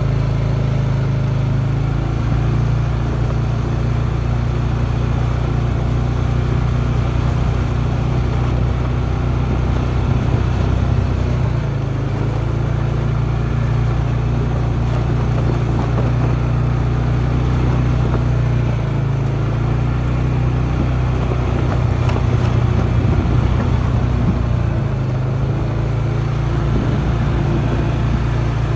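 Off-road vehicle's engine running steadily at a low, even pitch as it rolls down a dirt trail.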